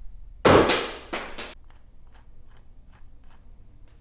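A loud clatter of metal parts about half a second in, then two sharp metal clinks that ring briefly, as steel rod ends are handled and set down.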